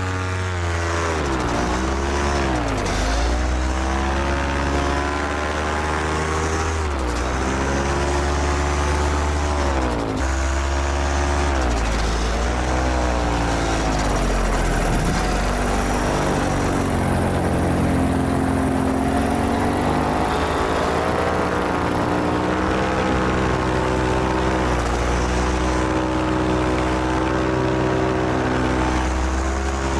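Two-stroke paramotor engine, a Vittorazi Moster 185, driving its propeller in flight. Its pitch drops and climbs back several times as the throttle is eased off and opened again.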